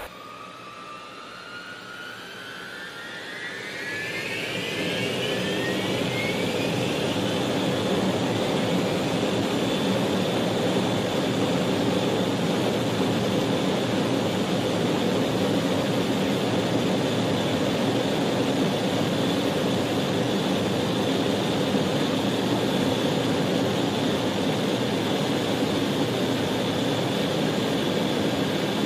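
Jet engines of a large aircraft heard from its cockpit, spooling up to takeoff power for the takeoff roll: a rising whine and swelling roar over the first six seconds or so, then a steady full-power roar with a high whine on top.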